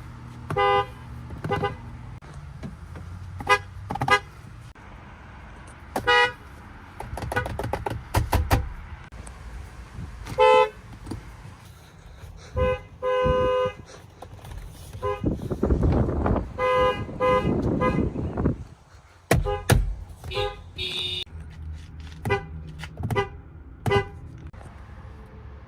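Car horns from several different vehicles honking one after another, mostly short toots with a few longer blasts, at varying pitches.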